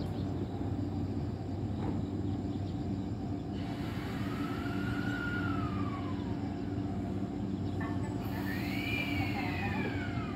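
JR East E131-series electric train at a station platform, giving a steady electrical hum. Two slow whines rise and then fall in pitch over it, one about four seconds in and a higher one near the end.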